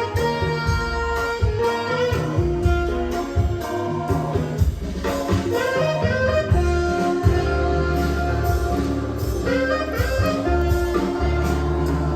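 Instrumental music with a steady beat, played through an Akai GX-9 cassette deck during a recording test on type I tape with Dolby C.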